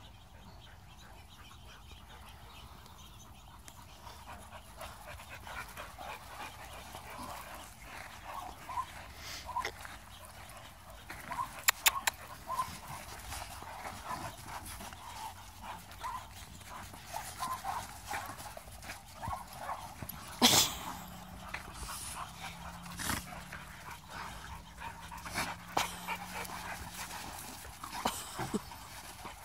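Pit bull-type dogs play-wrestling: panting and many short whines and yips, with a few sharp knocks, the loudest about twelve and twenty seconds in.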